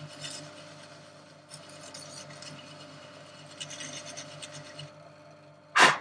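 A Record lathe's motor hums steadily at its slowest speed while a small hand tool scrapes intermittently against a spinning brass quick-coupler seat, taking the corrosion off. Near the end there is one short, loud puff of breath, blowing the brass dust out of the coupler.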